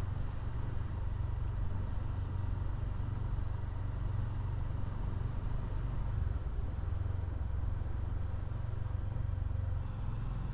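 Motorcycle engine running steadily at low speed while riding, a constant low drone heard from the rider's seat.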